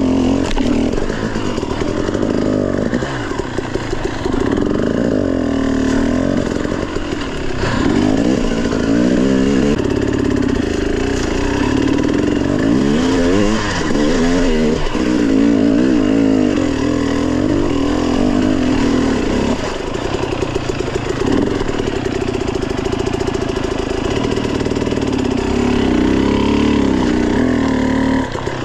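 Dirt bike engine revving up and down repeatedly as the throttle is worked, with brief drops in engine speed in between.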